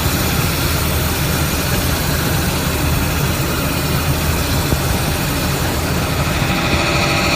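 CNC wheel rim repair lathe running: a steady low machine hum under an even hiss, with higher whining tones coming in near the end.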